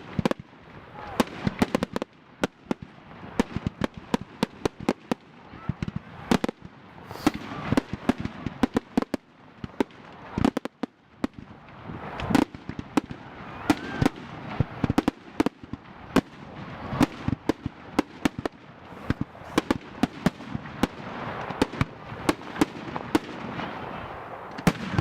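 Aerial firework shells bursting in a professional display: a dense, irregular run of sharp bangs, several a second at times.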